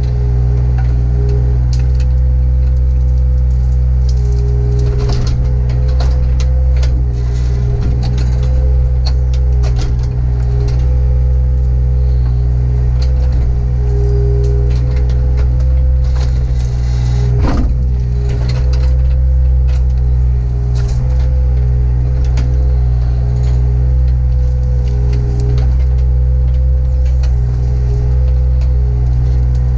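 Excavator diesel engine running steadily under hydraulic load, heard from inside the cab, while the machine tears out buckthorn brush. Scattered cracks and clicks of branches and debris sound throughout, with one louder creak a little past halfway.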